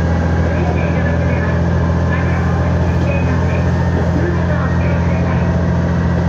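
Diesel railcar engine running steadily with a deep hum, heard from inside the moving train.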